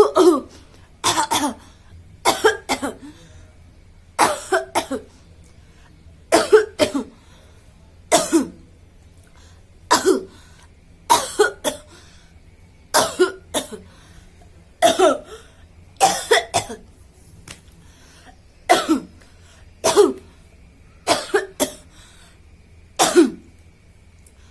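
A woman coughing over and over without stopping, in short bouts of one to three coughs about every one and a half to two seconds. The coughs are forced and acted, not from a real illness.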